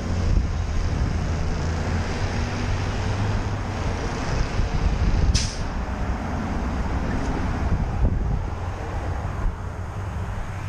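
Street traffic noise dominated by a nearby vehicle engine running with a steady low hum, and a short sharp hiss about five seconds in.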